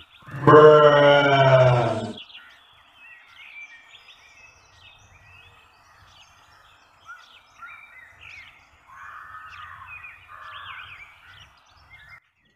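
A loud pitched call or sound effect with wavering pitch lasts about two seconds near the start. After it, faint birds chirp on and off.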